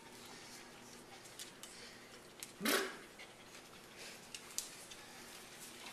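A small child clearing her throat once, a short raspy sound rising in pitch about halfway through, with a few faint clicks of handling around it.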